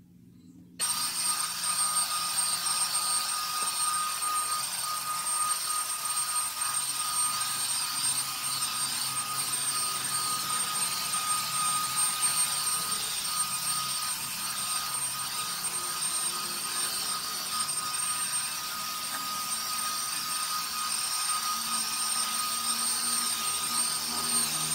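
Corded stick vacuum cleaner switched on about a second in, then running steadily with a high motor whine as it vacuums a carpet.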